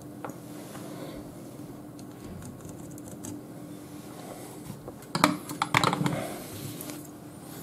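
Faint steady hum, then about five seconds in a brief cluster of light clicks and clatter as soldering tools are handled.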